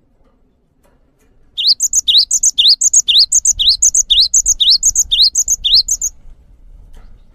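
Cinereous tit (gelatik batu) singing loudly about a second and a half in. It repeats one phrase, a rising whistle followed by two higher notes, about twice a second, nine times over some four seconds.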